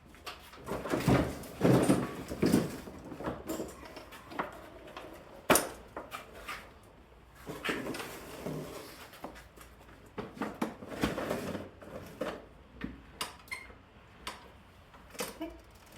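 Irregular clunks, rattles and scrapes of a push mower being handled and moved off its work surface, with a few sharp knocks.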